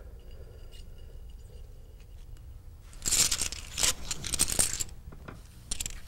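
Poker chips clattering on a tabletop in a run of quick bursts about three seconds in, with a few more clicks near the end.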